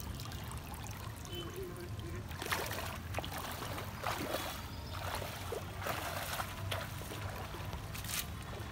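Bare feet splashing through shallow water in irregular steps, with water trickling from a freshly lifted, wet cast net.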